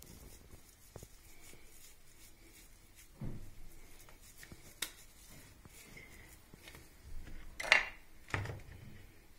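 Quiet food-handling sounds on a wooden table: soft rustles and a few light knocks as slices are laid on parchment paper, with the loudest clatter near the end as a small plastic tub of pesto is picked up.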